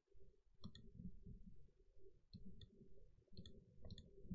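A handful of faint, sharp computer mouse clicks, some in quick pairs, over a low steady hum.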